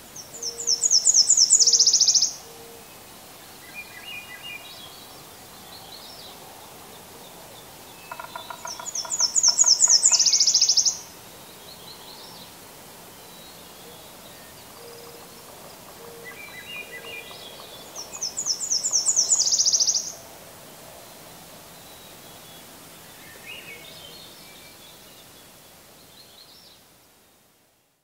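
Spring dawn chorus of forest songbirds. A warbler sings a high, quick song of repeated notes ending in a faster trill, three times about nine seconds apart, with fainter songs of other birds in between. The sound fades out near the end.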